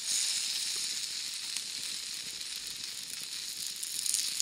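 Slices of Comté cheese sizzling as they melt in a steel frying pan over campfire embers: a steady high sizzle with small crackles, loudest right at the start and again near the end.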